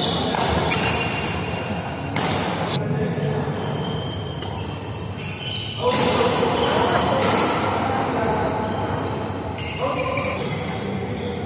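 Indoor badminton play: sharp racket hits on the shuttlecock and thuds of players' shoes on the court, mixed with players' voices. The hits come in a cluster early on and again about six seconds in.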